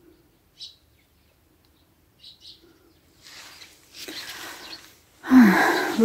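Small birds chirping faintly a few times, then rustling of movement, and near the end a short, loud human vocal sound with a falling pitch.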